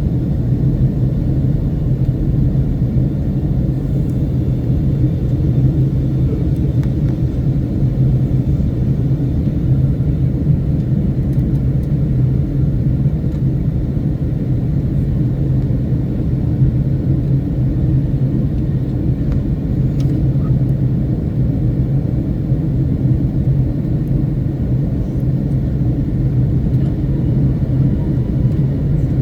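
Boeing 757-200 airliner in flight: a steady low rumble of engine and airflow noise that does not change.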